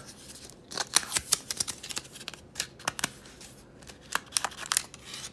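A card-and-clear-plastic blister pack holding a fountain pen ink converter being worked open by hand: irregular crinkling and sharp clicks of card and plastic, the loudest about a second in.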